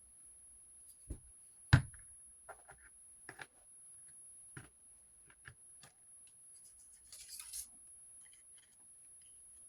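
Hands working with paper and craft tools on a table: scattered light taps and knocks as things are picked up and set down, the loudest a sharp knock about two seconds in, and a brief scratching rustle about seven seconds in.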